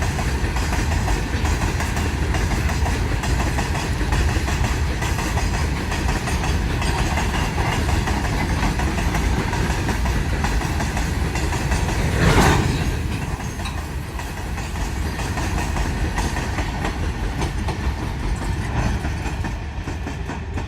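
Goods train running along the track: a steady loud rumble of rolling stock, with one brief louder burst of noise about twelve seconds in.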